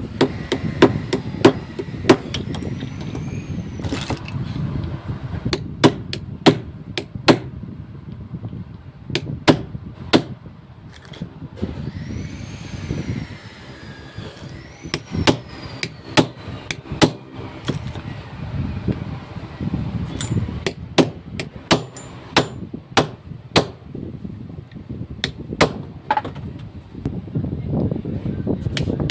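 Small hammer tapping on metal over and over at an uneven pace, roughly one or two sharp knocks a second with short pauses, while a jammed car ignition lock is worked apart. A steady fan hum sits underneath.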